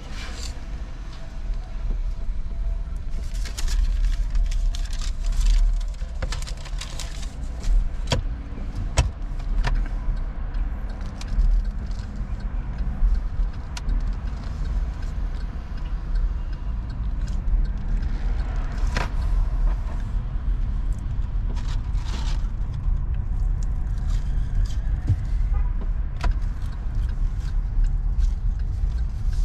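Low, steady rumble of an electric car on the move, tyre and road noise heard inside the cabin, with scattered small clicks and rustles.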